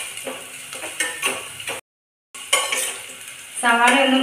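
Steel spoon stirring sliced onions frying in a stainless-steel pressure cooker, with repeated clinks of metal on metal over a light sizzle. The sound cuts out for a moment a little under two seconds in, and a voice starts near the end.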